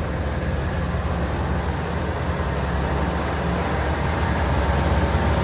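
Steady low engine rumble of a large motor vehicle, growing slightly louder near the end.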